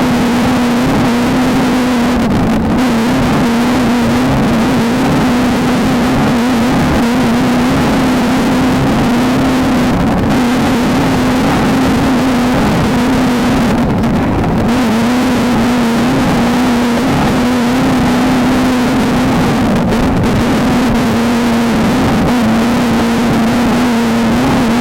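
Off-road race car's engine running hard at a high, nearly steady pitch that wavers only slightly, over a constant loud rush of wind and road noise.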